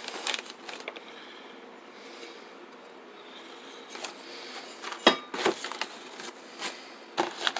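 Handling sounds of parts and packaging being taken from an AR-15 kit box: light rustling with a few sharp clicks and knocks, the loudest about five seconds in.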